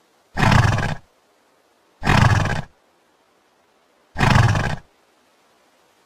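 A horse's call, the same sound heard three times about two seconds apart, each lasting about two-thirds of a second.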